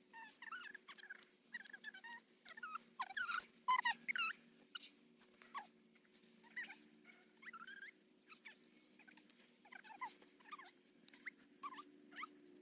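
Short, high animal calls that bend in pitch, repeating irregularly, over a faint steady low hum.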